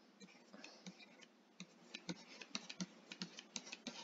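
Faint, irregular light clicks and taps, several a second, from a stylus on a graphics tablet as sketch strokes are put down.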